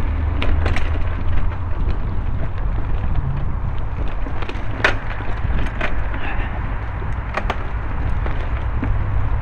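Mountain bike riding along a leaf-covered forest dirt trail: tyres rolling over leaves and twigs, with a scattered handful of sharp snaps and clicks over a steady low rumble.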